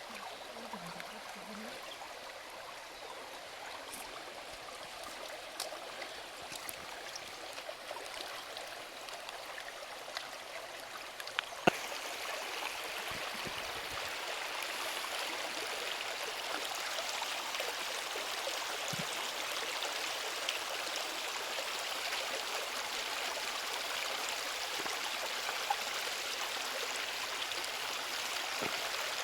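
A stream running, a steady rush of flowing water. It gets louder about twelve seconds in, just after a sharp click, and a few faint ticks sound over it.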